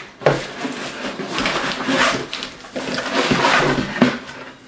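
Cardboard chainsaw box being handled and opened, rustling and scraping as the saw is pulled out of its packaging, with a sharp knock about a quarter second in and another about four seconds in.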